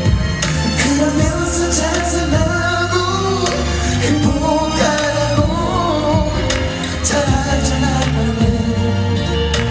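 Male singer performing a pop song live into a handheld microphone, his melody over a backing of bass and a steady drum beat.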